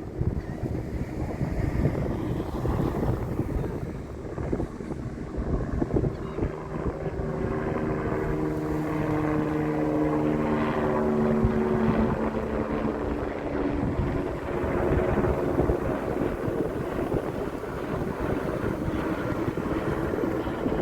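Wind buffeting the microphone throughout. From about six seconds in, the droning engine of a passing motor craft swells, shifts slightly in pitch as it goes by and fades away by about fifteen seconds in.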